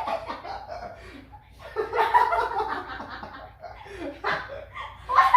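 People laughing and chuckling in several broken bursts.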